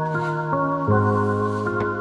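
Soft instrumental background music with held chords, the chord changing about a second in.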